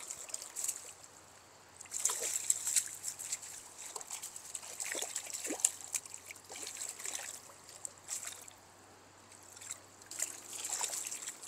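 Water splashing and trickling in short, irregular bursts as a freshly landed trout is handled in the river.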